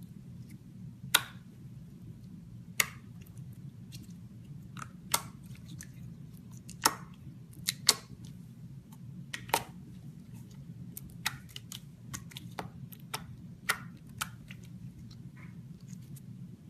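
Slime being squeezed and poked by hand, giving irregular sharp clicks and pops, roughly one or two a second, over a steady low hum.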